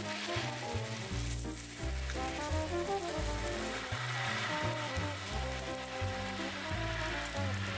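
Pork belly and sausage slices sizzling steadily in a nonstick frying pan, over background music.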